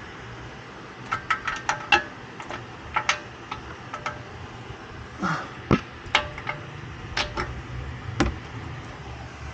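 Hand tools and metal parts clinking and knocking in an irregular series of sharp strikes, some with a short metallic ring, during wrench and socket work on a wheel hub assembly.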